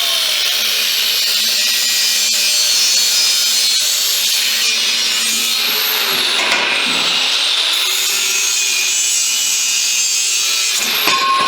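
A power tool cutting through a steel pipe, a steady high-pitched grinding whine without breaks; its pitch dips briefly about six seconds in.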